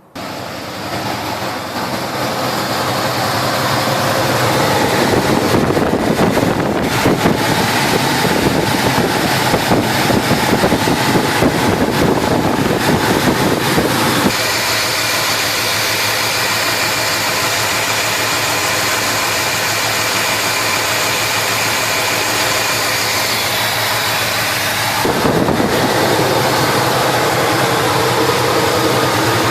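Chevrolet 350 small-block V8 starting and running, uneven at first, then settling; the sound changes abruptly about 14 and 25 seconds in. The engine has a persistent misfire, with the number one cylinder not firing.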